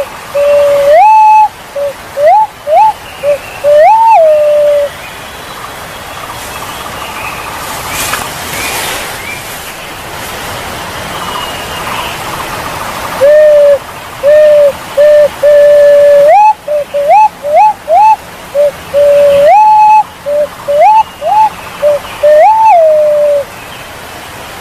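Punai walik jawa, a green pigeon, calling in loud pure whistles. Each phrase mixes short notes that swoop up and fall back with longer notes held level. The calls come in two bouts about eight seconds apart, over a steady hiss.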